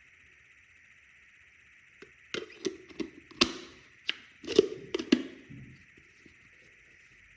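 A quick cluster of sharp clicks and knocks with dull thuds, starting about two seconds in and over within about four seconds, over a faint steady hiss.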